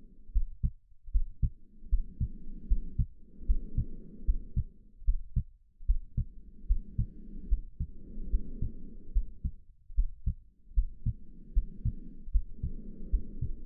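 A heartbeat beating steadily in low lub-dub double thumps, with slow, soft swells of breathing, in and out, rising and falling over it every few seconds.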